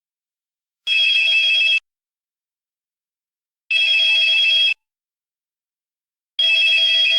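Mobile phone ringtone ringing in three one-second bursts of a steady buzzy ring, about three seconds apart, with silence between the rings.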